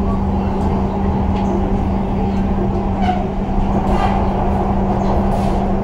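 Pune Metro train running, heard from inside the carriage: a steady rumble with a constant low hum, and faint voices around the middle.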